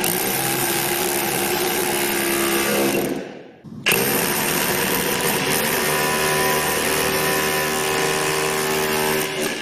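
Milwaukee M18 FHP cordless rotary hammer chiselling into a concrete block with a flat chisel bit, running steadily as the block breaks apart. It stops for a moment about three seconds in, then starts again.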